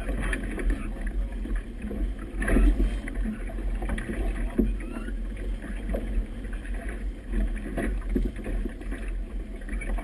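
Wind of about 17 to 20 knots buffeting a GoPro's microphone in a gusting low rumble, over choppy river water slapping and splashing against a boat's hull, with a couple of louder splashes about two and a half and four and a half seconds in.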